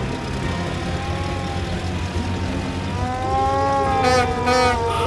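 Cartoon vehicle sounds: a steady low engine rumble under a slowly rising and falling siren wail, with two short higher bursts about four seconds in.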